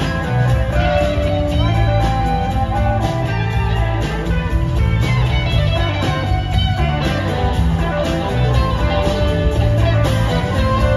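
Live rock band playing, with electric guitars over bass, drums and keyboard.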